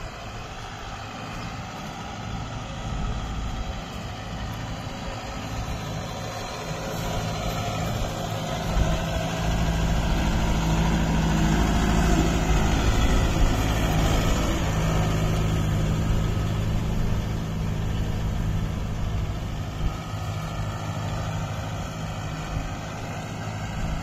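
Kubota 4WD tractor's diesel engine running steadily as it pulls a cultivator through the soil. It grows louder as the tractor passes close about ten seconds in, then eases off as it moves away.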